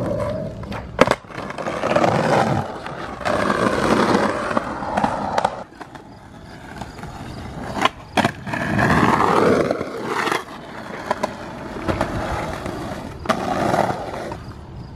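Skateboard wheels rolling over stamped concrete banks, the rolling swelling and fading as the riders carve. Several sharp clacks of boards popping and landing break in.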